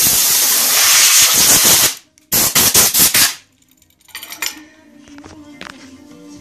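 Compressed air from a home-built compressor blasting out loudly, with a hiss that cuts off about two seconds in. After a brief pause comes a second, shorter, sputtering blast.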